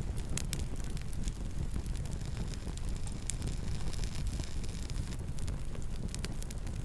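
Wood campfire crackling, with irregular sharp pops and snaps scattered over a low steady rumble.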